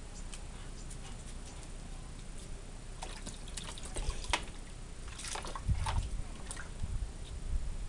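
Water splashing in a small plastic paddling pool as an Alaskan Malamute steps in and stirs the water with his front paws and muzzle. The splashes come irregularly from about three seconds in, heaviest a little past the middle.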